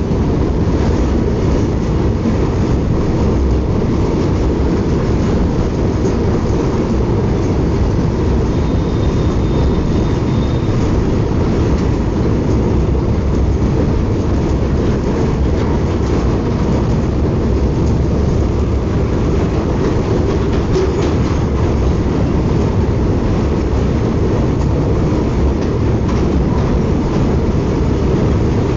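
Indian Railways superfast train running on the track: a loud, steady rumble of wheels on rails that holds unchanged throughout.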